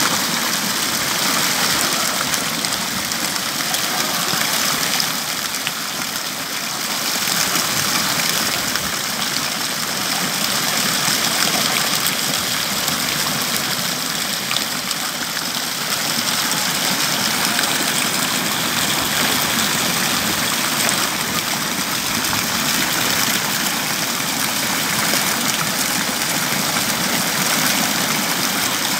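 Fountain water falling and splashing steadily into its basin, heard close up as an even rush.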